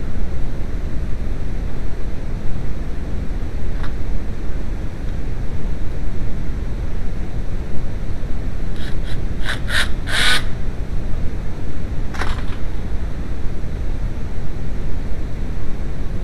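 Audi 1.8T four-cylinder turbo engine running, a steady low rumble, which after the crankshaft position sensor replacement is the sign that it now starts and runs. A few short sharp clicks come about two thirds of the way through.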